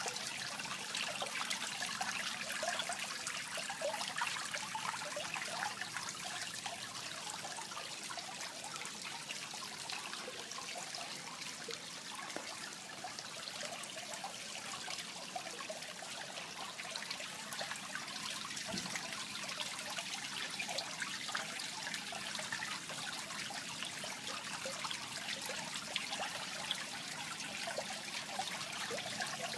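Water trickling and splashing steadily into a fish pond, a continuous patter of small drops.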